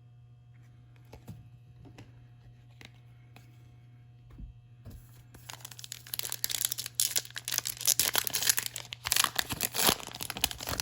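A few faint clicks, then from about five and a half seconds in, a foil trading-card pack wrapper crinkling and tearing loudly as a Topps Chrome baseball card pack is torn open.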